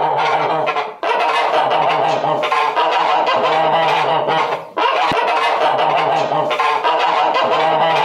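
A flock of domestic waterfowl calling over one another in a loud, dense, continuous chorus. The chorus breaks off briefly about a second in and again near five seconds.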